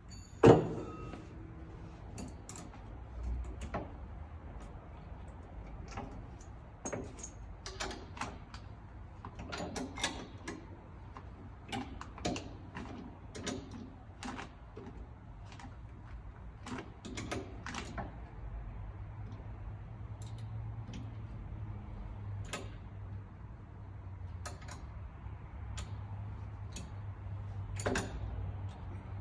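Hand work on a wooden piano shipping crate: scattered clicks, knocks and light rattles of a hand tool and screws against the 2x6 bracing boards as they are taken off, with one sharp knock about half a second in.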